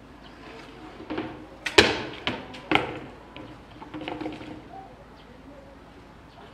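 Polar bear knocking a plastic pipe about on rock: four sharp knocks between about one and three seconds in, the second the loudest, then a few softer knocks.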